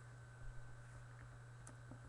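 Near-silent room tone: a steady low electrical hum with a thin steady whine above it, and a few faint short clicks near the end.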